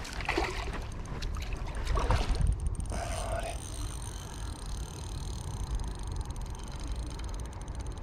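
Wind rumbling on the microphone with a few splashes and knocks, then from about three seconds in the steady whir of a spinning reel being cranked.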